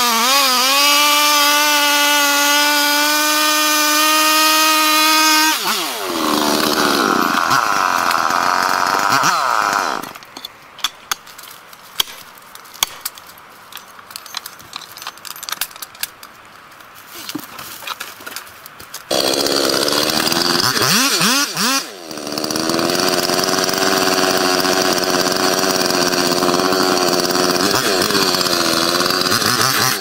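Gasoline chainsaw cutting into a large tree trunk at full throttle, steady for about five seconds and then wavering in pitch. About ten seconds in the saw falls quiet, leaving scattered sharp clicks and knocks. It comes back loud under load at about nineteen seconds and keeps cutting to the end.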